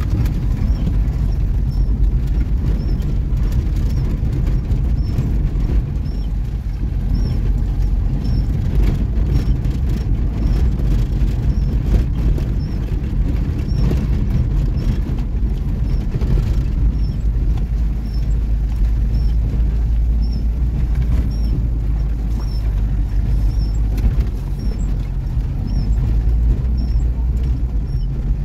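Car engine running and tyres rolling over a muddy dirt road, heard from inside the cabin as a loud, steady rumble. A faint high chirp repeats about once a second.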